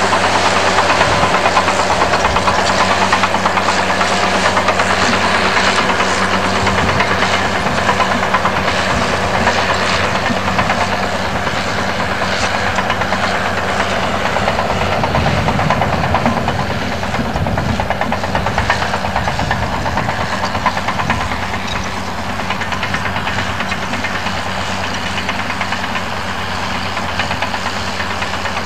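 Bulldozer's diesel engine running steadily while the machine works, growing a little quieter about two-thirds of the way through.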